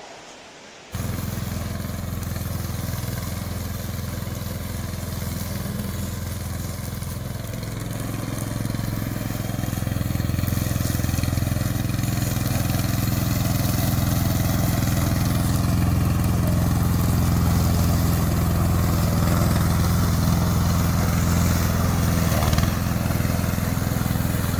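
Remote-controlled tracked slope mower running steadily, its engine and cutting deck making a continuous low drone. It starts abruptly about a second in and grows a little louder in the second half.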